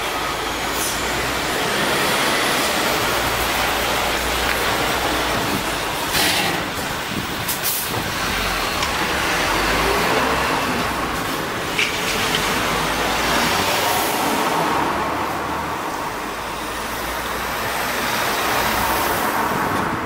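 Road vehicles driving over a railway level crossing close by, a van and then a box truck, engine and tyre noise swelling and easing. A few short sharp clatters sound about six to eight seconds in.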